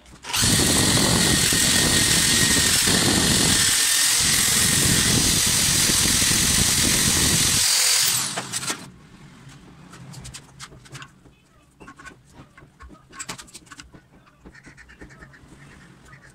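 A makeshift electric grinder with an abrasive disc runs loudly and steadily with a thin whine, cleaning rust off a steel tap wrench. It stops suddenly about eight seconds in, followed by light metal clicks and handling of the tool.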